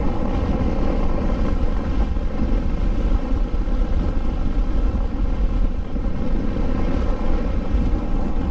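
Motorcycle engine running steadily at cruising speed, its even hum mixed with low wind rumble on the microphone.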